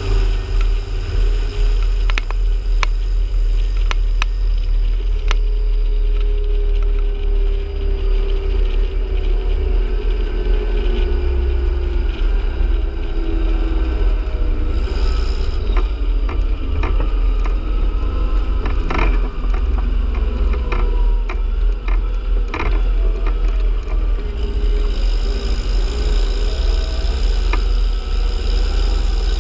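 Terra Gator 8333 self-propelled applicator's engine running under way, a loud deep rumble with a droning tone that slowly drops in pitch about a third of the way through. Scattered sharp clicks and knocks sound over it, in two clusters early on and past the middle.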